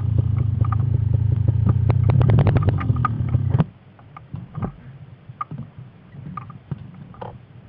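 KTM 300 EXC two-stroke enduro engine running with a rattling, ticking note, then stopping abruptly about three and a half seconds in. Faint knocks and rustles of handling follow.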